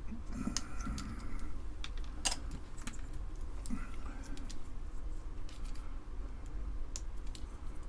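Small plastic keyboard keycaps and their nylon inserts clicking and snapping as the inserts are popped loose by hand, irregular light clicks with one sharper snap about two seconds in.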